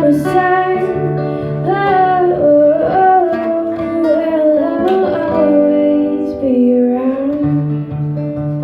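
Female voice singing long held notes with no clear words over a strummed guitar. The voice stops about seven seconds in, leaving the guitar playing on its own.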